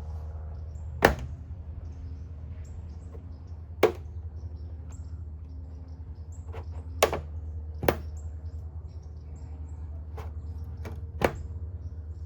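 Sharp plastic clicks and snaps, five in all, as a plastic trim removal tool pries at the trunk handle and its trim clips, over a steady low hum.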